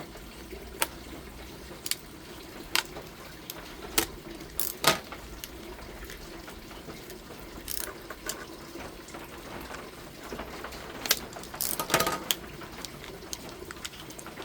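Irregular sharp clicks and knocks of hands handling and opening a new pair of combination pliers from its packaging, with a small cluster about four seconds in and a busier cluster near the end, over a steady low hum.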